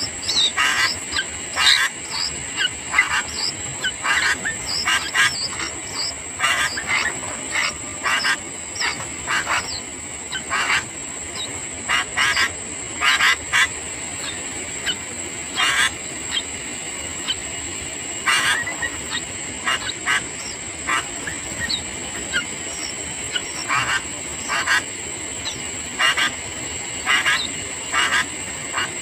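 Sooty-headed bulbuls calling: short, sharp notes repeated irregularly, often more than one a second, over a steady high-pitched whine.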